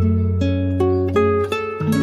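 Background music played on a plucked string instrument: single notes of a slow melody, one about every half second, over held low notes.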